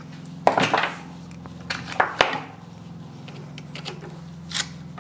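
Metal clicks and scrapes of pliers and a screwdriver prying a stubborn circlip out of a propshaft universal-joint yoke clamped in a vise. The sharpest clicks come about half a second in and around two seconds in, with a smaller one near the end, over a steady low hum.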